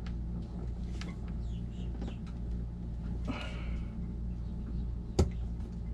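Small plastic clicks and a brief rustle of wires as a Deutsch connector plug is worked into its receptacle on the converter, with one sharp click a little past five seconds in as the plug seats and latches. A steady low hum sits under it.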